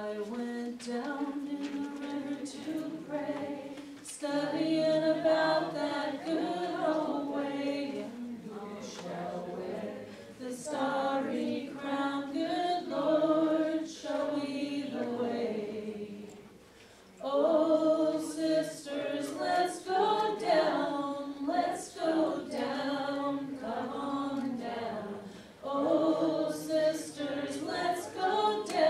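A church worship group singing a hymn together, with voices only and no clear instruments. The singing breaks off briefly about two-thirds of the way through, then starts again.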